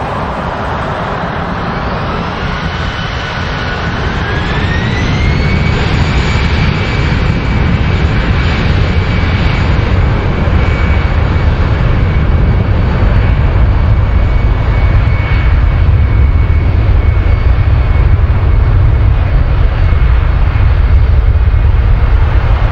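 Airbus A319-112's CFM56 turbofan engines spooling up for the takeoff roll. A whine rises in pitch over the first six seconds and then holds steady, over a low rumble that keeps getting louder.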